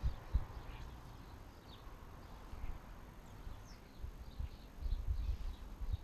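Garden birds giving faint, scattered short chirps, under irregular low gusts of wind buffeting the microphone that grow stronger about four seconds in.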